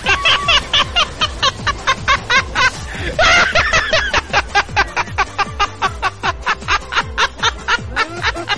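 Laughter sound effect: a fast, unbroken run of short pitched 'ha' bursts, about five a second, with a louder, higher burst about three seconds in, over music with a steady low bass.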